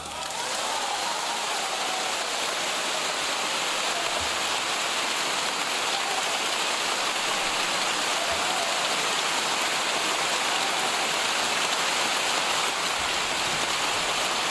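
Concert-hall audience applauding: dense, steady clapping with no music.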